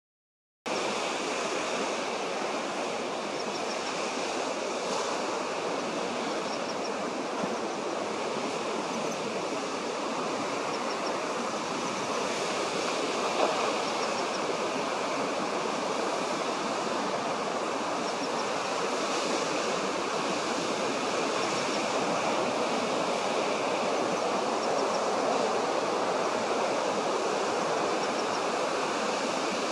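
Steady rushing noise, even and unbroken, that starts just after half a second in.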